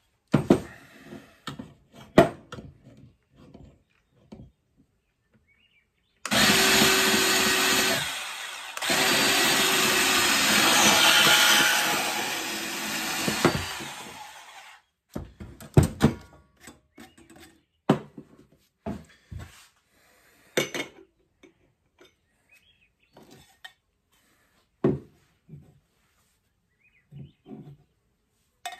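DeWalt portable band saw cutting through 1-inch copper pipe at a 45-degree angle, running steadily for about eight seconds with a brief break soon after it starts. Before and after the cut, scattered knocks and clinks of the pipe and tools being handled.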